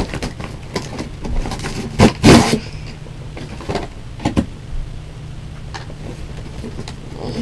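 Cardboard toy box being pulled open and handled: scraping and rustling, with a louder burst about two seconds in and a few sharp clicks after, over a low steady hum.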